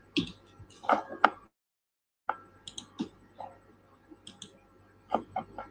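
Scattered clicks of a computer mouse and keyboard, a dozen or so short taps at uneven spacing. The sound cuts out completely for under a second about a second and a half in.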